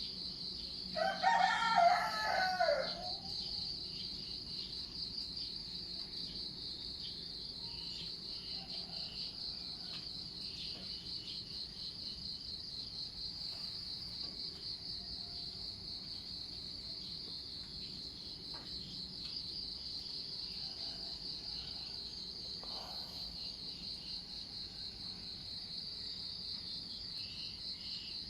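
A rooster crows once, about a second in: one loud call lasting about two seconds that falls away at the end. Under it, insects chirr steadily and high-pitched throughout, with a few faint short calls scattered later.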